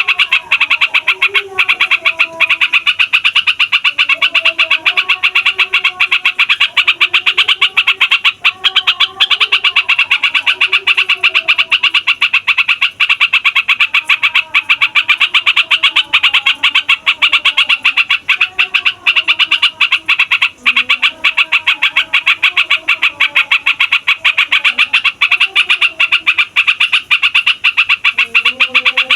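Yellow-vented bulbul (trucukan) singing a long, unbroken rolling chatter of very rapid notes, with fainter, lower-pitched wavering calls beneath.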